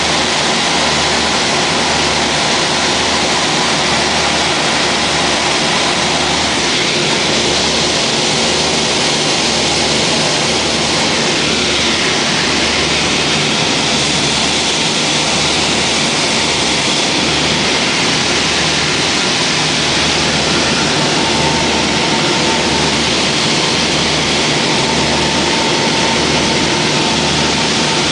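Beechcraft Duchess twin-engine light aircraft in cruise, heard from inside the cabin: the steady drone of its piston engines and propellers with a loud hiss over it. The low drone pulses slowly, about once a second.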